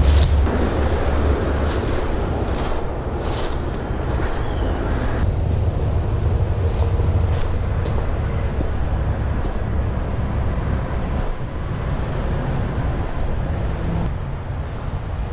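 Footsteps and brushing through dense undergrowth, a crisp swish or crunch about every half second to a second for the first five seconds, then sparser. Under it runs a steady low rumble that is louder than the steps.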